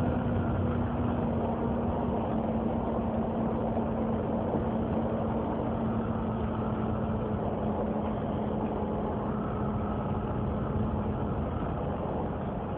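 Volvo B7TL bus idling with its engine cooling fan running, giving a steady vacuum-cleaner-like "hoovering" roar. A humming tone in it sinks slowly and slightly in pitch.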